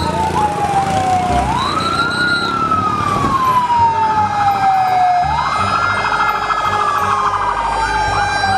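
Several fire engine sirens wailing together: the loudest rises quickly in pitch and then falls slowly, twice, with other sirens overlapping it. A faster warbling siren joins near the end.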